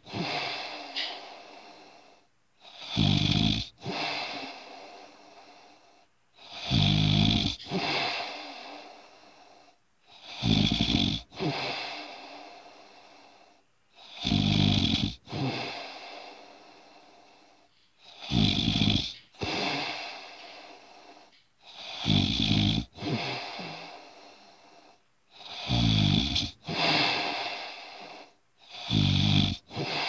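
Regular snoring, one snore about every four seconds, eight in all: each a low rattle followed by a shorter breath that trails off.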